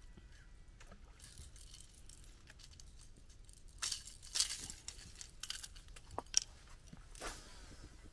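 Faint handling sounds: short rustles and light clicks of metal pliers and a fish lip gripper as a caught striped bass is unhooked. The loudest rustles come about four seconds in, with a sharp click a couple of seconds later.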